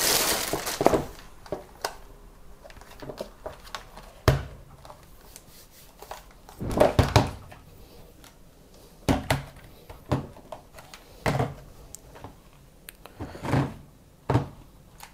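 Plastic bag crinkling as it is pulled off a steam iron during the first second. Then a series of scattered knocks and thunks as the plastic-bodied iron and its cord are handled and set down on a glass tabletop.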